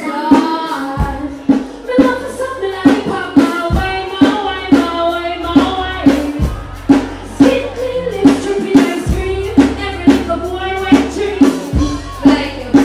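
A live dancehall performance over a stage sound system: a woman sings and deejays into a microphone over a backing riddim. The riddim has a steady drum beat of about two hits a second and deep bass.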